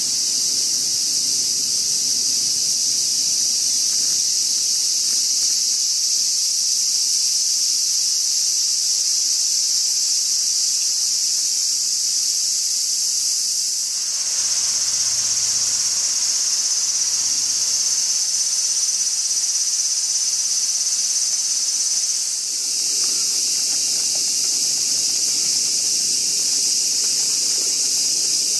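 Summer cicadas droning in a steady, loud, high-pitched chorus, with two brief dips where the sound shifts slightly.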